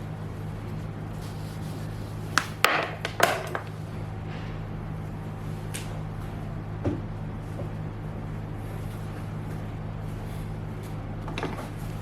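Several sharp knocks and clatters of objects being handled, bunched together about two and a half seconds in with one more near seven seconds, over a steady low hum.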